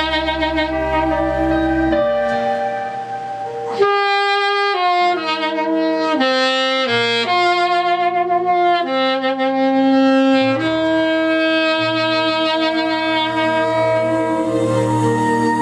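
Saxophone playing a slow melody with held notes over a backing accompaniment with a bass line.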